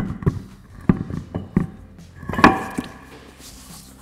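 A heavy pickup truck wheel and tyre being fitted onto the hub's lug studs: a sharp knock, then a series of thuds. About two and a half seconds in there is a louder metallic clank that rings briefly.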